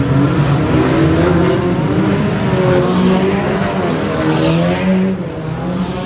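Many banger racing car engines revving hard at once, their overlapping notes rising and falling as the pack accelerates round the bend and past.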